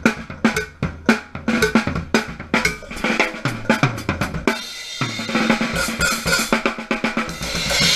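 Drum kit played, recorded through a GoPro Hero 3's microphone inside its watertight housing: quick snare and bass-drum hits, then cymbals washing in over the second half and a loud cymbal crash near the end.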